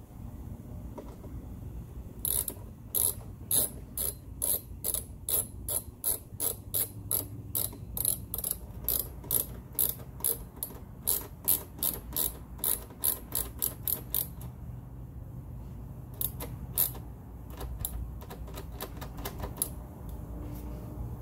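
Hand ratchet clicking as it drives the fairing side-panel screws back in: a steady run of sharp clicks, about three a second, starting about two seconds in and stopping around fourteen seconds, followed by a few scattered clicks.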